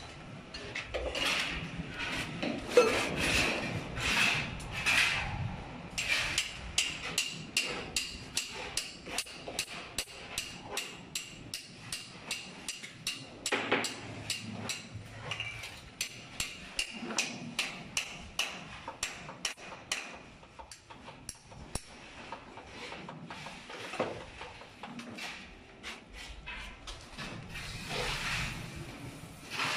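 Hammer striking as a precast concrete lintel is fitted, a long run of sharp, regular blows about two or three a second that thin out after about twenty seconds.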